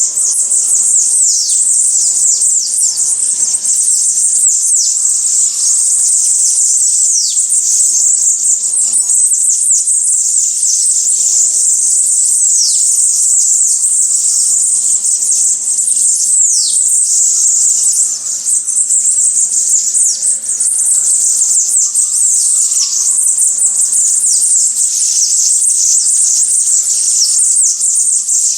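A dense chorus of many small songbirds chirping and twittering high in pitch, with repeated quick downward-sweeping calls running through it.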